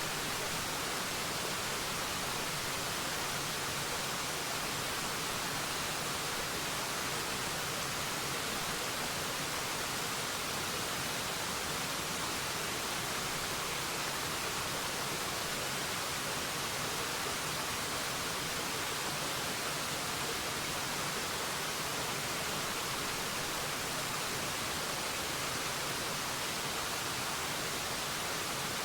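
Waterfall rushing in a steady, unbroken hiss with no changes or separate splashes.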